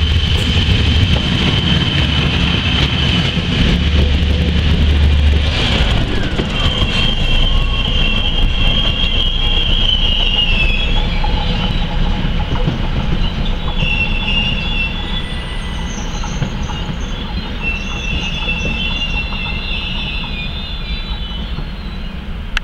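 An ÖBB electric locomotive running close by for the first five seconds or so, then a slowly moving train's wheels squealing against the rails in long, high, wavering tones over a steady rolling rumble.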